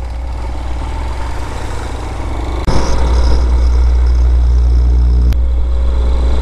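A Vitacci Raven 250's 229cc air-cooled single-cylinder engine running steadily as the bike is ridden, under heavy wind rumble on the microphone. The sound steps up abruptly about three seconds in and shifts again near the end where the footage is cut.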